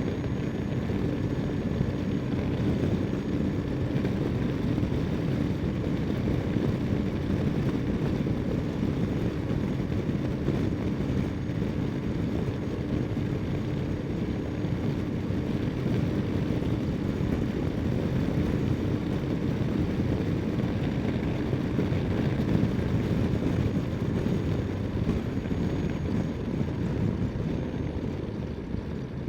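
Ducati Multistrada 1260 S V-twin engine running at a steady road speed under way, mixed with wind noise on the microphone; it gets a little quieter near the end.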